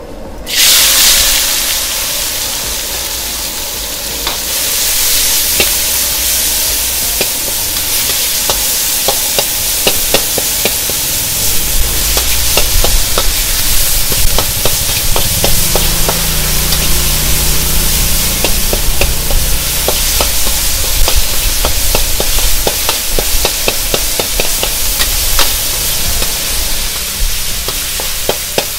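Stir-frying in a wok over a gas burner: a loud sizzle as the food hits the hot oil about half a second in, then a steady frying hiss. A metal ladle scrapes and clacks against the wok, the clacks coming thick and fast from about eight seconds in, and a low rumble joins about twelve seconds in.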